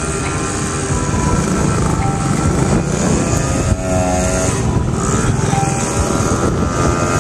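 A small engine running steadily and loudly, without a break.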